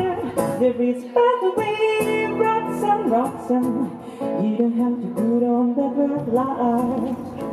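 A woman singing a melodic line live, accompanied by her own fingerpicked acoustic guitar.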